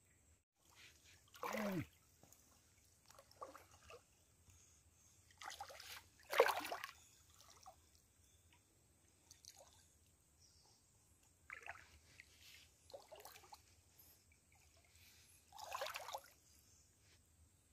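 Hands working in shallow creek water, making a string of small, separate splashes and sloshes with quiet gaps between. The loudest comes about six and a half seconds in.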